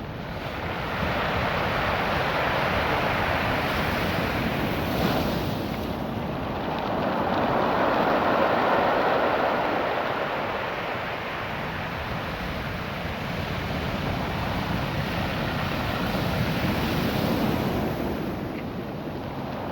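Ocean surf washing up and back over a beach of small rounded stones, which the rolling water sets rattling. It swells and eases in slow surges several seconds apart.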